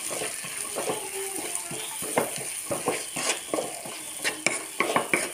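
Chopped onions sizzling in hot oil in a non-stick pan while a spatula stirs them, with irregular scraping and tapping strokes against the pan.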